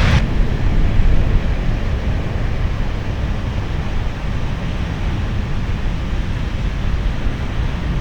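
Wind buffeting the microphone over the steady low rumble of ocean surf.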